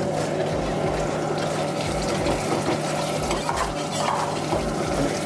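A stainless-steel ladle stirring and scraping a thick gravy round a black iron wok on a gas burner, mixing cashew paste into it, over a steady low hum.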